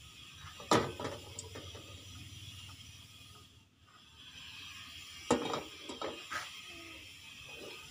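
Gas stove burner hissing steadily under a pan of heating cooking oil, with a few sharp knocks, one about a second in and others around five to six seconds in.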